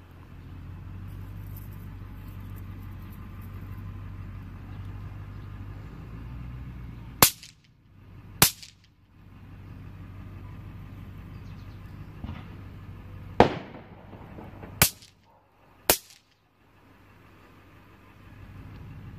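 Five sharp cracks of snap pops (bang snaps) thrown onto concrete: two a little over a second apart about seven seconds in, then three more about a second apart. A steady low rumble runs underneath.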